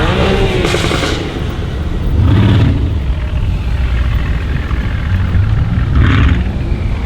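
Brabus B63S-730 Mercedes S63 AMG Coupe's twin-turbo V8 exhaust, revving and accelerating hard. Its pitch rises and falls right at the start, with louder surges about a second in, at about two and a half seconds and around six seconds.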